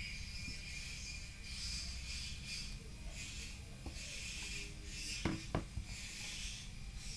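Handling noise: hands rubbing and sliding two smartphones against each other and over a hard surface, soft scraping swells with two light knocks a little after five seconds in.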